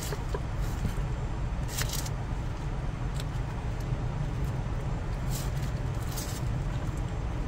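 Steady low hum of an idling truck engine heard inside the cab, with a few brief crisp scrapes of a knife peeling an onion on a wooden cutting board.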